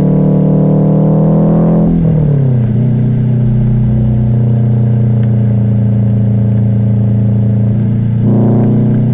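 Subaru WRX STI's turbocharged flat-four engine and exhaust under acceleration: the pitch rises for about two seconds, then falls away and settles to a steady drone, and it rises sharply again near the end.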